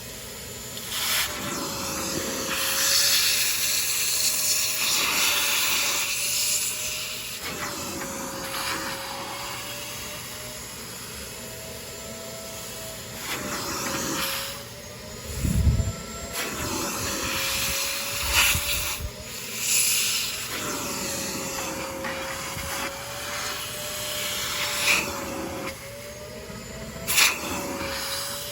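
Vacmaster Professional Beast wet/dry shop vac running, its motor whine wavering slightly up and down in pitch every few seconds as the nozzle is worked over car-seat upholstery, with hissing rushes of suction. A dull thump about halfway through.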